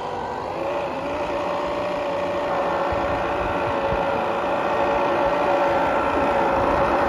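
A 1/8-scale 3D-printed RC Land Rover Discovery 5 model running through deep snow. It makes a steady mechanical running sound with a held whine, growing a little louder toward the end.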